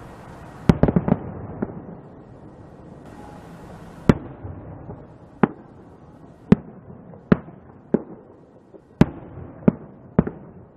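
Aerial firework shells bursting in a series of sharp bangs. A quick cluster of several comes less than a second in, then single bangs follow about once a second.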